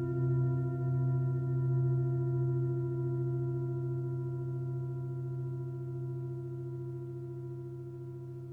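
A deep, sustained metallic ringing tone from a gong-like struck instrument, slowly dying away with a gentle waver in its low note. It is a soundtrack tone, not barn sound.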